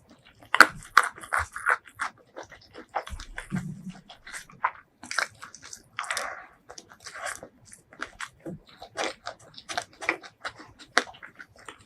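Close-miked eating: biting into and chewing crunchy fried food, with many short crunches and wet mouth clicks.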